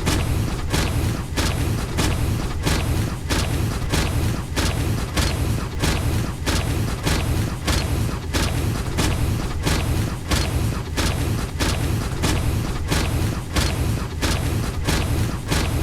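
A Cyberman's stomping footsteps, a steady march of about two steps a second over a continuous low rumble.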